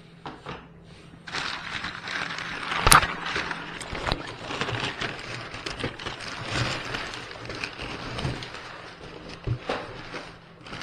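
Crumpled brown kraft packing paper and newspaper crackling and rustling as they are pulled out of a cardboard box, with one sharp snap about three seconds in.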